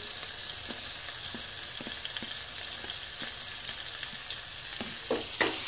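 Onions, tomatoes and green chillies sizzling steadily in hot oil in a non-stick pan, with faint light ticks as chopped green chillies are dropped in by hand.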